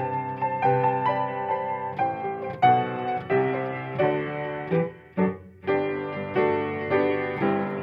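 Upright piano played in chords, one after another, with a short break about five seconds in before the playing goes on.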